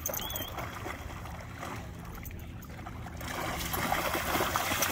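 Water splashing and sloshing as a large dog, an American Akita, plays in it, growing louder about three seconds in.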